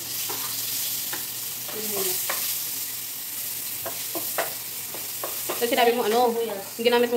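Ginger and green chilies hit hot oil in a wok and start sizzling at once. A metal spatula scrapes and taps against the pan a few times as they are stirred.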